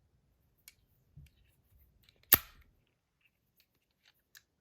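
A few faint clicks and one sharp snap a little over two seconds in, from the parts of a large mechanical-slider spinner fidget being handled and worked.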